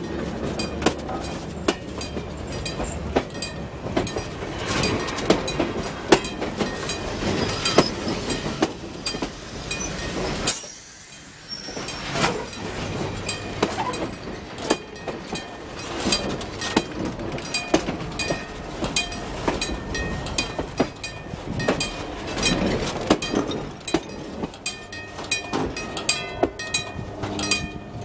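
Steel wheels of a slow-moving vintage electric train rolling along the rail right beside a microphone at track level, with a continual run of clicks and clacks from the wheels over the rail. About ten seconds in there is one loud click and a brief drop in level. Near the end a steady ringing tone joins in as the last car rolls away.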